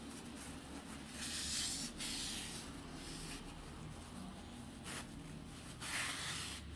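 A crumpled tissue rubbing over the edges of a phone's glass screen protector, wiping off residue UV glue in several short scratchy swipes.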